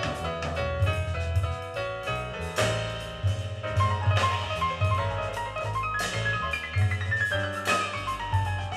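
Jazz from a vinyl record played through Altec 604E speakers: a walking bass line and drums under quick runs of high pitched notes, one of them stepping steadily down in pitch near the end.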